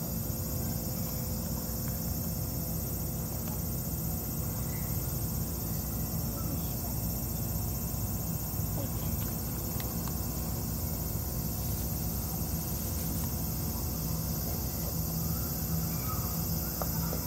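Steady, high-pitched drone of a summer cicada chorus, over a constant low rumble.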